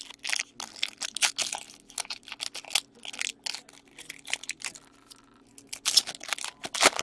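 Foil trading-card pack wrapper being torn open and crinkled by hand, in irregular crackling bursts with short pauses.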